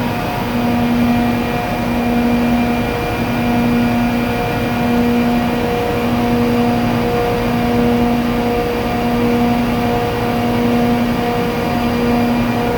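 400 hp ammonia (R-717) low-side booster compressor running steadily: a loud mechanical hum with a droning tone that swells and fades every second or two.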